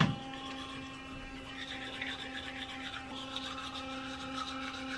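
Electric toothbrush running with a steady hum while its head scrubs against the teeth. The scrubbing grows stronger after about a second and a half. A brief bump comes right at the start.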